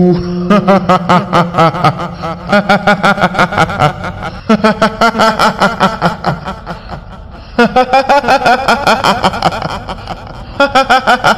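High-pitched, rapid 'hihihi' cackling of a kuntilanak ghost voice, a woman's laugh in quick repeated pulses, coming in four runs, over a low droning tone.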